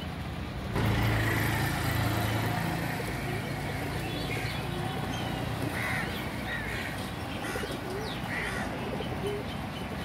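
Birds calling over a steady low traffic rumble: short chirps repeated from about four seconds in, along with rock pigeons cooing. The rumble gets louder a little under a second in.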